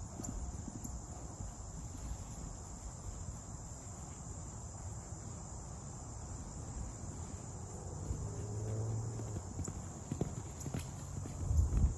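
Muffled hoofbeats of a Thoroughbred horse trotting and cantering on grass turf, with a few sharper knocks in the second half.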